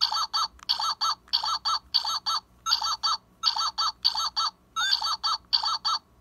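Handheld whack-a-mole toy game playing its squeaky electronic sound effect: short chirps in quick pairs, about two pairs a second, repeating without a break while the game runs.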